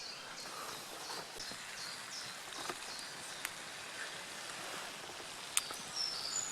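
Songbirds chirping faintly over a steady soft hiss, with a couple of sharp clicks.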